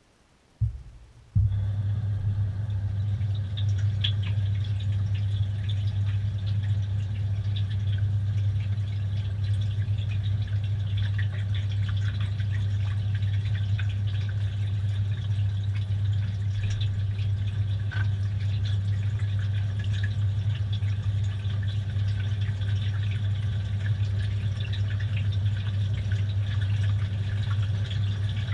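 Washing machine starting to fill, heard from inside the machine: a click under a second in, then a steady low hum with water running and dripping.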